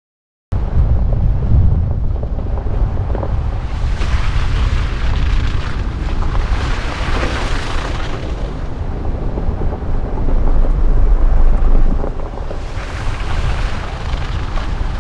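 Wind buffeting the microphone: a loud, continuous low rumble with a rushing hiss that swells and eases. It cuts in suddenly about half a second in.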